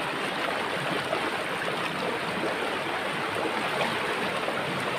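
Shallow, fast-flowing rocky river rushing steadily over and between boulders.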